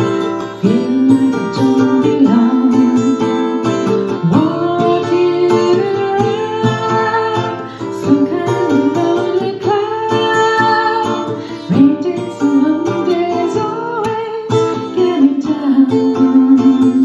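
A woman singing a melody with long held notes that slide between pitches, accompanied by acoustic guitar.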